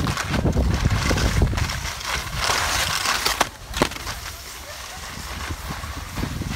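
Wind buffeting the microphone in a low rumble, with a louder scraping hiss of sliding over icy snow about two and a half seconds in.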